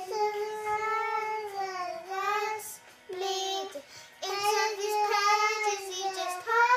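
Young girls singing, holding long notes that bend down at the ends of phrases, with short breaks about two and four seconds in.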